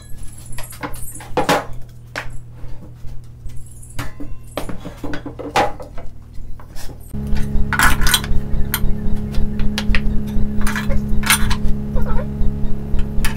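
Plywood cabinet panels knocking and clattering as they are handled and fitted together. About seven seconds in, a steady machine hum starts underneath and keeps going, with the knocks continuing over it.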